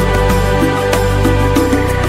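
Background music: an adventure-style soundtrack with sustained melodic notes, a bass line and a steady beat.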